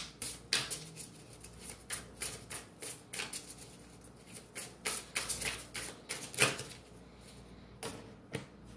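A tarot card deck being shuffled by hand: a quick, irregular run of crisp card clicks and slaps that thins out about seven seconds in.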